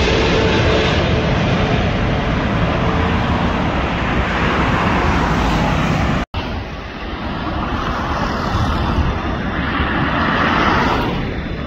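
Jet engine noise from a Boeing 777-300ER's GE90 turbofans as the airliner passes low on landing approach, a dense steady rumble and roar. It cuts off abruptly about six seconds in, then a quieter mix of road traffic and a distant approaching airliner's engines swells again near the end.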